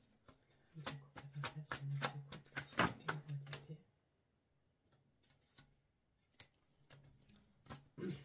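Tarot deck being shuffled by hand: a quick run of card flicks and clicks for about three seconds, then a few single soft taps as cards are handled.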